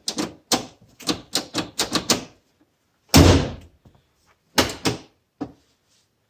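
Aftermarket outside door latch on a Yamaha RMAX side-by-side door being worked: a quick run of sharp clicks as the freshly lubricated latch lever is pulled and springs back, then a heavy thunk as the door is shut and latches, followed by two more sharp clicks.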